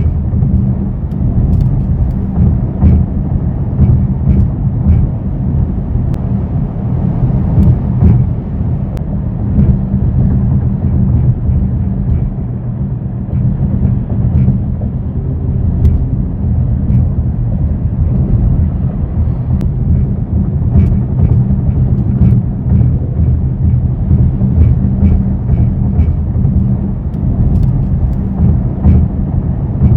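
Cabin noise of a 2024 Mercedes-AMG GLE63 S driving at highway speed: a steady low drone with faint, irregular light ticks. This is the vibration noise from the dash area that the owner is chasing and cannot trace.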